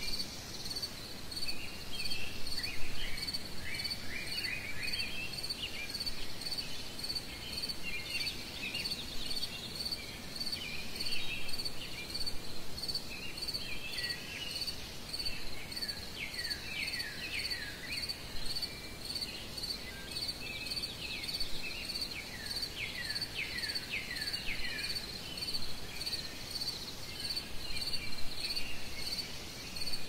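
Nature ambience: a cricket chirping steadily in evenly spaced pulses, with birds singing in runs of quick descending notes.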